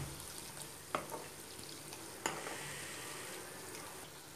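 Butter sizzling and bubbling as it cooks down into ghee in a thick-bottomed kadai, its water still boiling off under a foam of large bubbles. A ladle stirring it clinks sharply against the pan twice, about a second in and again just over two seconds in.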